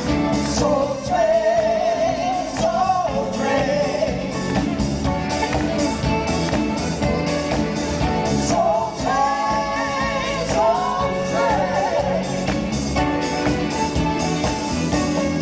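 Female vocal group singing live, backed by a band with drum kit and bass guitar playing a steady beat.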